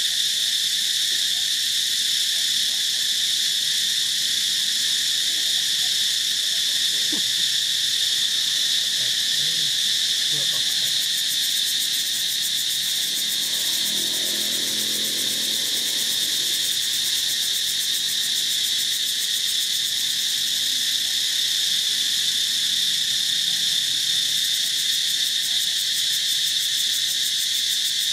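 Chorus of insects making a continuous, steady high-pitched drone.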